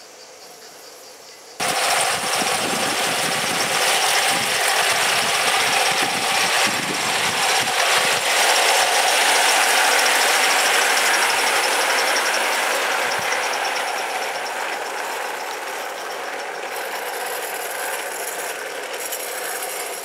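Gauge 1 live-steam model of a BR Standard Class 4MT tank locomotive running close past with its coaches: a dense mechanical rattle of the engine and wheels on the track. It starts suddenly about a second and a half in, is loudest midway and fades slowly as the coaches go by.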